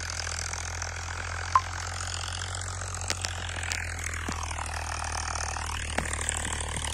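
Farmtrac 60 tractor's three-cylinder diesel engine running steadily at a distance while pulling a disc harrow, a constant low drone. A few faint clicks are scattered through it.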